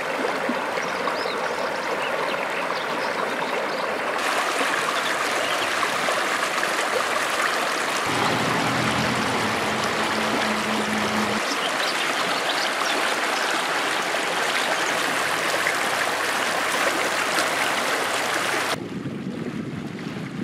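Shallow stream running over flat rock ledges: a steady rush of water whose tone shifts abruptly a few times, with the higher hiss dropping away near the end.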